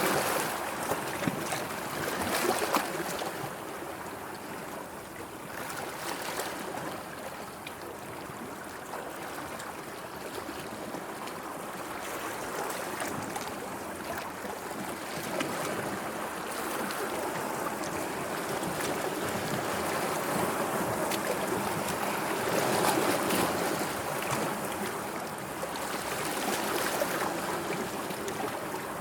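Sea water washing and lapping in small waves, swelling and easing, with a few short splashes; the wash is louder near the start and again about two-thirds of the way through.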